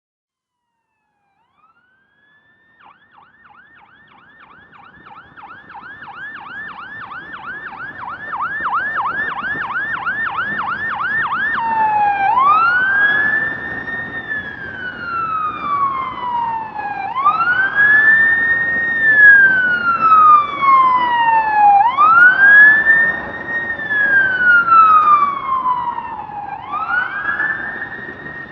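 Electronic emergency-vehicle siren approaching and growing louder, echoing in city streets: after a single rising sweep it runs a fast yelp warble, about three cycles a second, then about twelve seconds in switches to a slow rising-and-falling wail, over a low traffic rumble.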